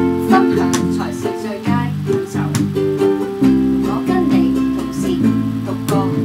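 Acoustic guitar music: chords plucked on a nylon-string classical guitar, each note held and changing every second or so.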